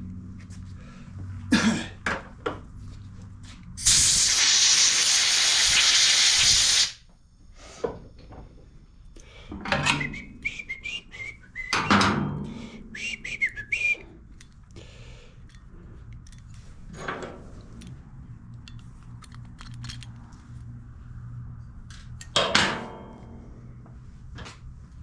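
A hissing blast of pressurised air or cleaner about three seconds long, a few seconds in, used to clear small two-stroke carburetor parts, amid scattered clicks and knocks of small metal parts being handled on a workbench.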